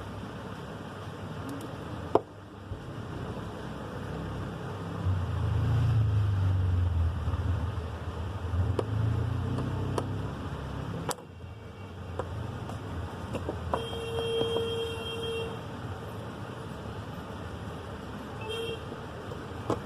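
Road traffic: a vehicle passing with a low rumble that swells about four seconds in and fades out near the middle. A short pitched toot like a vehicle horn sounds about two-thirds through, and sharp clicks fall near the start and midway.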